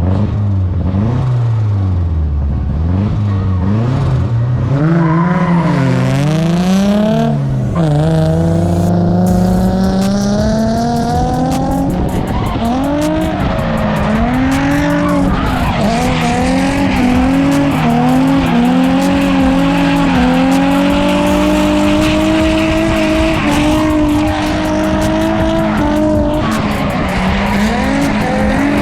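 Turbocharged Mazda Miata drifting: the engine revs rise and fall sharply for the first dozen seconds, then are held high with small dips, with tire squeal over it.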